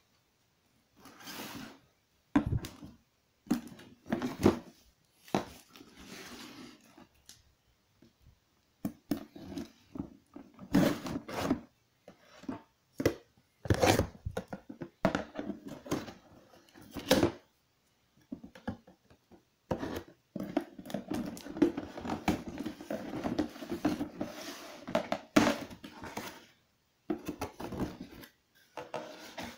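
Cardboard box being handled and opened by hand, with scattered knocks and scrapes of the cardboard. In the second half there is a longer stretch of continuous rustling and scraping.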